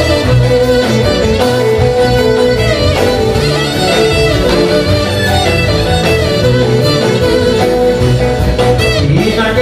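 Loud live band music for dancing, led by violin over plucked string instruments.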